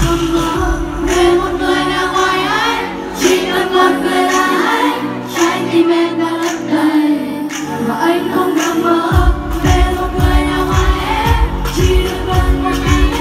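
Live pop music over concert speakers: a female singer's voice over a pop backing track. The bass and beat drop out for a few seconds in the middle and come back in about nine seconds in.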